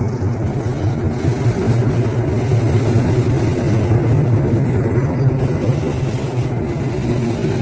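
KAI CC206 diesel-electric locomotive's engine running, a steady low rumble.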